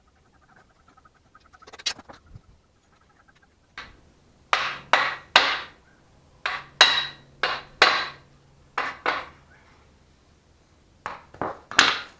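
Hammer striking metal: about ten sharp blows with a short ringing tail in a quick run through the middle, then three more near the end.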